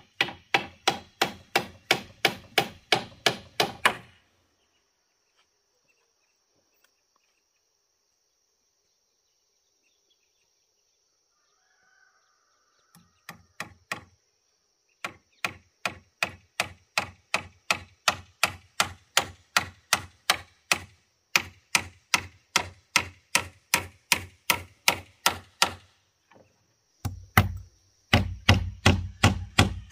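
Steel hammer driving nails into wooden boards: runs of quick, even strikes, about three to four a second, with a long pause after the first run. The last run is louder and deeper.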